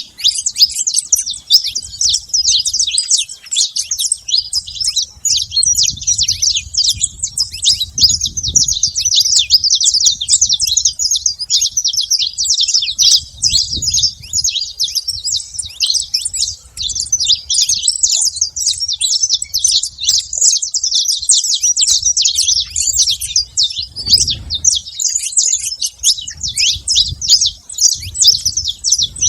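Saffron finch song: rapid, continuous high chirps and trills with no pauses.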